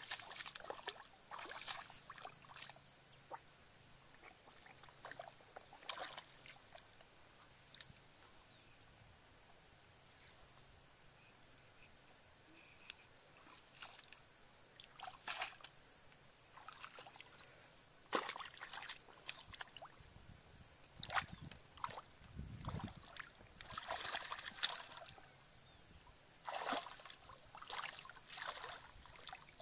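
Bare feet and hands splashing and sloshing in shallow muddy water among grass, in short irregular bursts, with a quieter stretch early on and more frequent splashes later.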